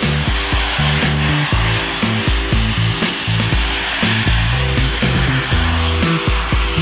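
Music with a pulsing bass line over the steady rushing roar of a jet suit's miniature jet turbines in flight.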